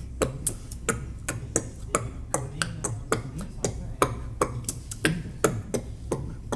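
A run of sharp percussive clicks in a loose rhythm, about three to four a second.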